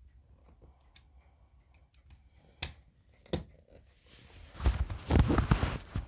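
Close handling noises: a few light clicks, two sharp knocks near the middle, then about two seconds of loud rustling and bumping near the end.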